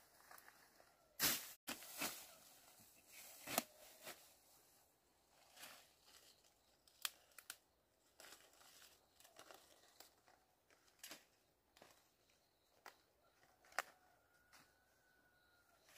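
Faint, irregular sharp clicks and rustling from something being handled, with a few louder rustles in the first four seconds.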